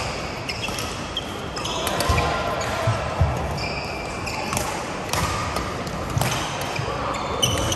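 Badminton rally: rackets striking the shuttlecock with sharp clicks, court shoes squeaking briefly on the mat, and players' footfalls thudding, with voices chattering from around the hall.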